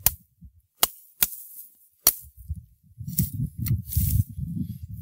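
Bark River Bravo-2 knife blade chopping into a pine limb: a string of sharp, separate chops roughly a second apart, taking off a side branch. A low rumbling noise comes in about three seconds in.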